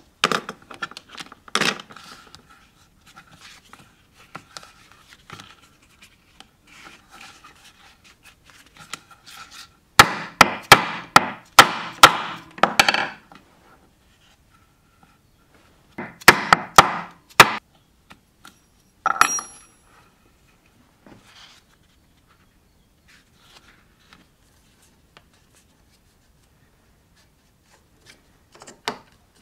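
Mallet striking a leather stitching chisel to punch stitch holes through leather on a cutting board: a run of about six sharp knocks, roughly two a second, then a run of four a few seconds later. A single knock with a brief metallic ring follows, with light handling noise between.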